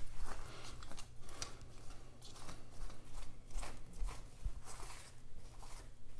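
Paper towel crinkling and rustling as it is handled and crumpled between the hands, an irregular run of crisp crackles.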